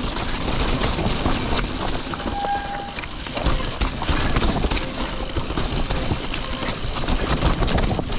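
Full-suspension mountain bike (Santa Cruz Bronson) rattling and its tyres rumbling over loose rocks on a descent, with many small clacks and knocks and a short squeal a little over two seconds in.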